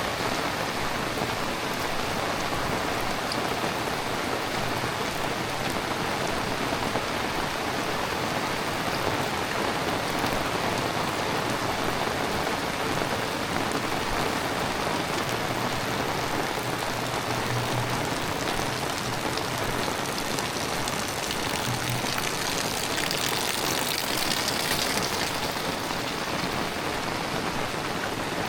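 Heavy rain falling steadily, an even hiss, with the higher part of the hiss swelling briefly about three-quarters of the way through.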